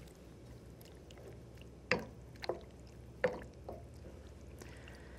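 Wooden spoon stirring tofu cubes into thick tomato sauce in an enamelled casserole pan, with four quick knocks of the spoon against the pan in the middle.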